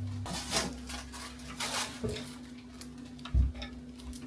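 Rustling and handling of packets of balloons and supplies, with a brief rustle about half a second in, another around two seconds, and a single dull thump about three and a half seconds in, over a faint steady electrical hum.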